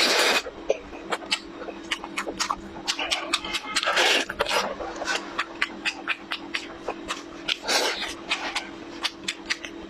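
Close-miked eating of braised meat on the bone: wet chewing, sharp lip smacks and clicks, and three louder slurps as fingers and meat are sucked, one at the start, one about four seconds in and one near eight seconds.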